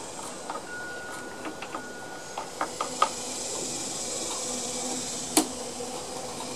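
Small metal parts clicking as a thrust washer and clip are handled on the rear wheel gear shaft of a Honda HRM215 mower's drive: a few light clicks about two and a half to three seconds in, and one sharp click near the end, over a steady background hiss.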